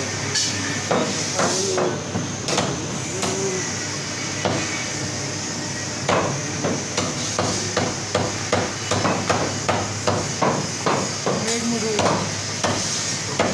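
Butcher's cleaver chopping mutton ribs on a wooden block: sharp, repeated chops. They come sparsely at first, then settle into a steady run of about three a second from about six seconds in.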